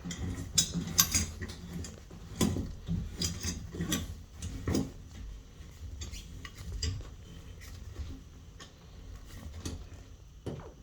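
New tub spout being screwed by hand onto the threaded pipe stub, with irregular clicks, clinks and short scraping sounds as it turns on the taped threads, more frequent in the first few seconds.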